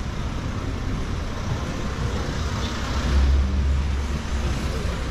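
Street traffic with cars passing close. A vehicle goes by about three seconds in with a louder low engine rumble that fades after a second or so.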